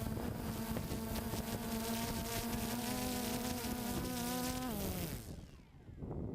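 A drone's motors and propellers giving a steady, high-pitched buzz. About five seconds in, the pitch falls and the buzz dies away as the motors spool down and stop.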